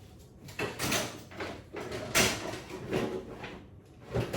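Kitchen units being opened and rummaged through in search of electric whisk beaters: a string of knocks and clatters, the loudest about two seconds in and near the end.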